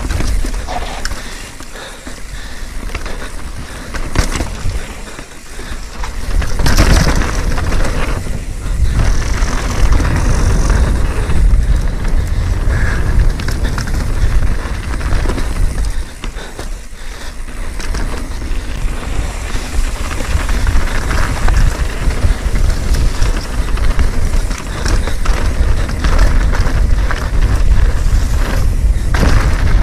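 Mountain bike ridden down a rough technical trail: a steady rush of tyre and wind noise, broken by frequent knocks and rattles as it goes over bumps.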